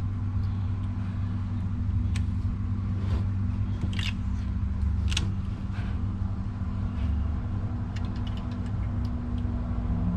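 Steady rumble of constant road traffic from a nearby main road, with a few light clicks.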